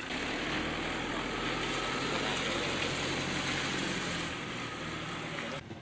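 A motor vehicle driving through shallow floodwater: a low engine hum under a steady hissing splash of water, which cuts off sharply shortly before the end.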